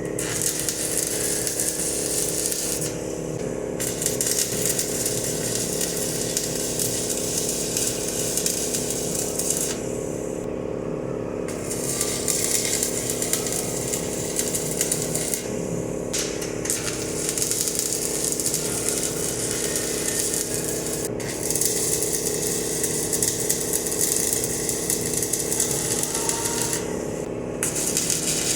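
Stick welder arc crackling and hissing as mild steel dies are welded onto a mini power hammer, the arc stopping briefly several times between runs. A steady machine hum runs underneath.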